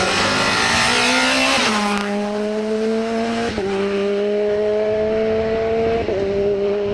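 Renault Twingo R2 rally car engine at full throttle, climbing in pitch through each gear with quick upshifts about every two seconds as the car accelerates away.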